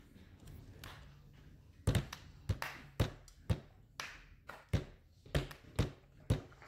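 A count-in before the brass enters: about ten sharp taps, roughly two a second, starting about two seconds in.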